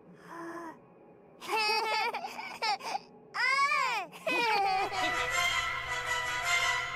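High-pitched, childlike Japanese anime voices exclaiming in short bursts, ending in a cheer of "Yeah!" about three and a half seconds in. Outro music with sustained notes starts about four and a half seconds in.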